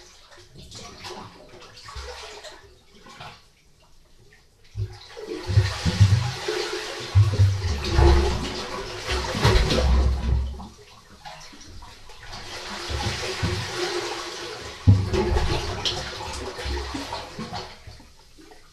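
Sea water surging into and draining out of a small rock cave at the water's edge, the cave 'breathing' with the swell: gurgling, sloshing water with low thuds. It swells in two surges, one about five seconds in and another about twelve seconds in, each fading away.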